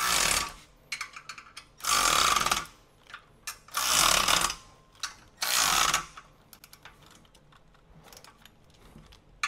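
Socket wrench tightening the bolts on a car-lift ramp: four short loud bursts about two seconds apart, with lighter clicks between them.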